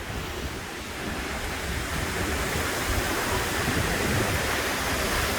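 Storm wind rushing through trees, with rain falling, swelling louder about two seconds in. Gusts buffet the microphone with a low rumble.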